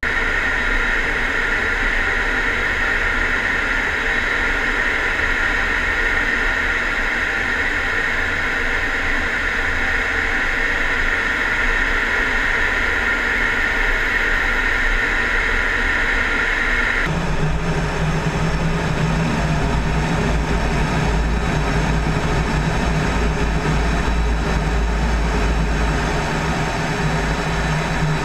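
Steady in-cockpit noise of a fighter jet in flight: engine and rushing air with a high hiss. About two-thirds of the way through it changes abruptly to a deeper hum and rumble.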